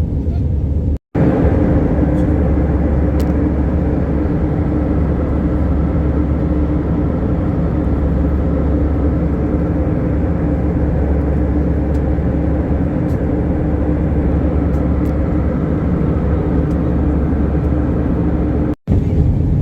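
Steady drone of an airliner cabin in flight: a low rumble of engine and air noise with a steady hum over it. It breaks off for an instant twice.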